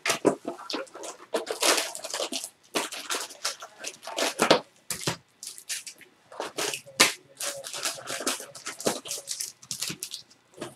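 Trading-card packaging torn open and crinkled by hand, a run of irregular rustles and rips.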